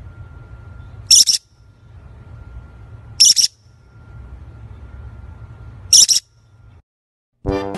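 A featherless small parrot giving three short, shrill calls a couple of seconds apart, over a faint low rumble.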